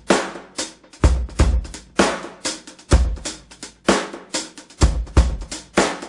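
Background music: a drum-kit beat of kick and snare hits at a steady pace, several strikes a second with a heavy kick about once a second.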